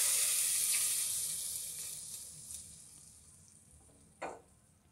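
Hot tempering oil with cumin, garlic and curry leaves poured onto cooked dal, sizzling loudly at first and dying away over about three seconds as it cools. A short knock near the end.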